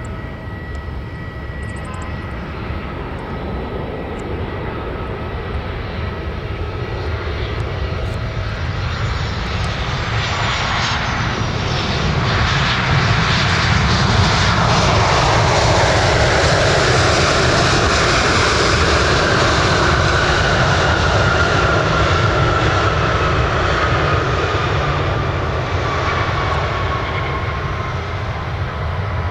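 Boeing 737-800 airliner's CFM56 turbofan engines as it lands and rolls out on the runway. The engine noise swells to its loudest midway, and a whine slowly falls in pitch as the jet moves away.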